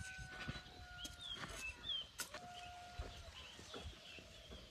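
Faint rooster crowing, each crow a long drawn-out call, with small birds chirping and a few soft thuds.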